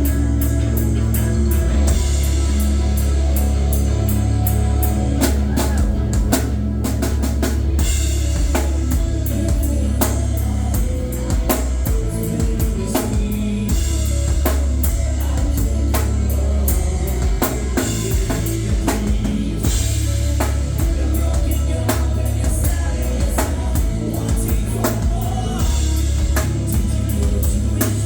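Live rock band playing loud, with a driving drum kit (kick drum and snare hits) over a heavy, sustained bass.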